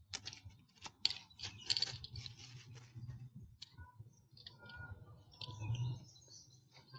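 Quick run of light clicks and rattles from the parts of a lawn mower's handle being handled and fitted during assembly, thickest in the first three seconds and sparser after.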